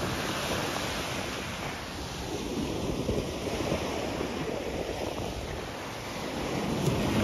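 Small surf breaking and washing up a sandy beach, with wind buffeting the microphone; the wash grows louder near the end.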